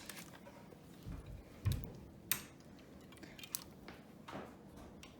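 A few scattered light clicks and soft knocks of small computer parts and hardware being handled, with quiet gaps between them.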